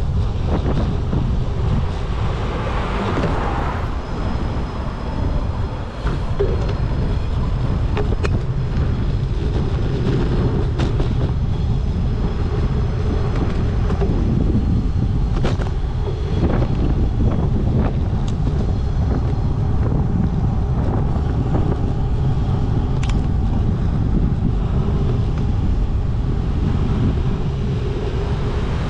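Steady wind rumble on the microphone of a camera riding along on a bicycle, over the noise of city street traffic, with a few sharp clicks and knocks scattered through.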